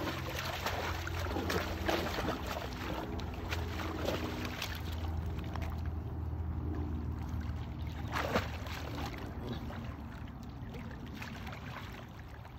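Water sloshing and splashing as a horse wades chest-deep through a muddy dam, with a sharper splash about eight seconds in. A steady low hum runs underneath and fades in the last few seconds.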